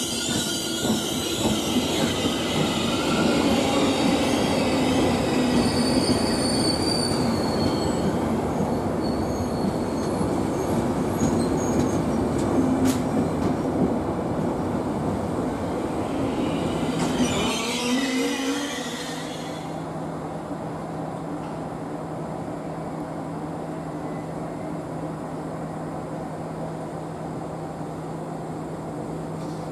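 Passenger coaches of an InterCity Notte train rolling past along the platform, wheels clattering on the rails with high-pitched flange squeal. A little past halfway the noise cuts off abruptly, replaced by a quieter steady electric hum from a Trenord double-deck push-pull train standing at the platform.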